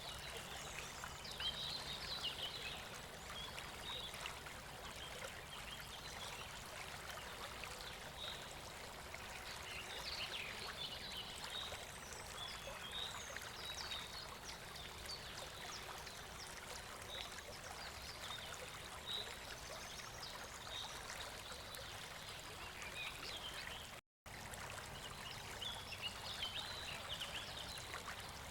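Steady rush of a mountain river flowing over stones, with birds chirping over it in short high calls. The sound cuts out for a split second near the end.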